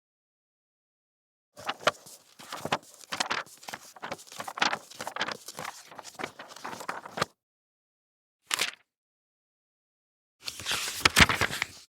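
Paper being handled: a run of short, quick crackling rustles for several seconds, then one brief swish, then a dense burst of crinkling with one louder crack in it.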